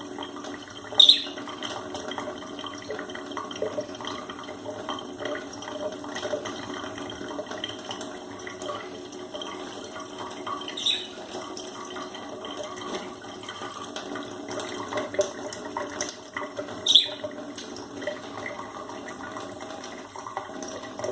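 Water running steadily from a tap, with pet budgerigars chirping over it and three short, louder calls: about a second in, about halfway, and about three quarters through.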